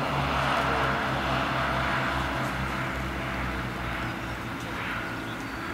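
Two-car diesel multiple unit running along the line, its underfloor diesel engines giving a steady low throb that pulses about three times a second, slowly fading as the train draws away.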